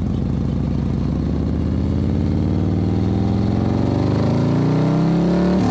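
Suzuki V-Strom 1000's V-twin engine accelerating, its pitch rising slowly and steadily.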